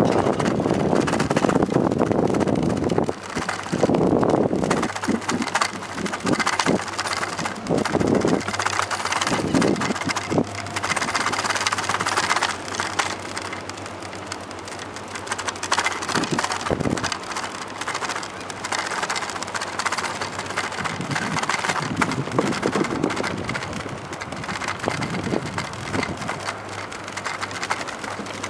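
Bicycle rolling over a wooden plank boardwalk: a continuous rumbling clatter from the tyres and frame, swelling louder every few seconds.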